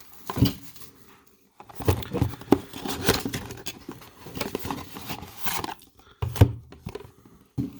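A trading-card blaster box being opened and handled: irregular crinkling and rustling of packaging, with sharp taps and clicks, the sharpest about half a second in and again near the end.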